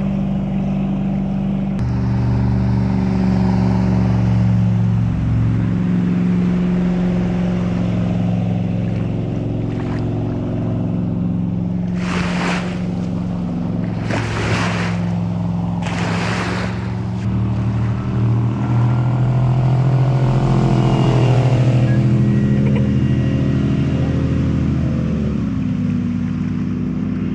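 Boat's LS V8 engine running steadily under way, its pitch sliding down over several seconds near the end. Three short rushes of noise come through in the middle.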